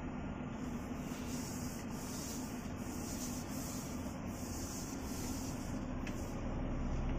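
Scania G410's 13-litre turbodiesel heard from inside the cab as the truck pulls away slowly: a steady low running noise with a hum. A lower engine note comes in near the end.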